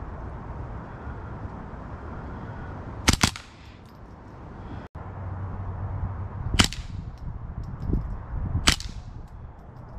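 Three rifle shots. The first comes about three seconds in, with a second crack right after it, and two more follow about two seconds apart near the end.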